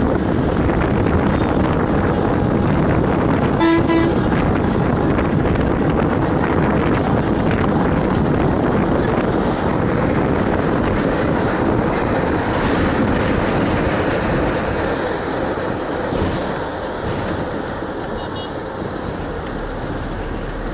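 Steady road and wind noise heard from inside a moving bus, with one short horn toot, about half a second long, a little under four seconds in.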